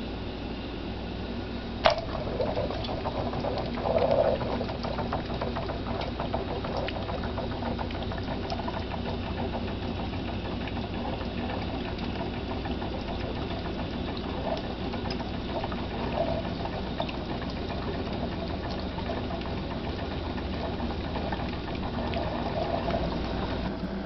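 Pyrex vacuum coffee maker bubbling and gurgling on a gas burner, steam from the lower bowl pushing up through the coffee in the upper bowl with a busy, irregular crackle. There is a sharp click about two seconds in and a louder gurgle around four seconds.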